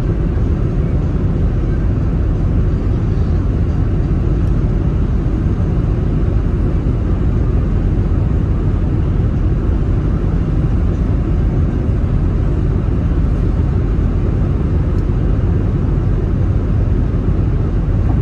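Steady low rumble of tyre and engine noise inside a car's cabin as it cruises along an expressway.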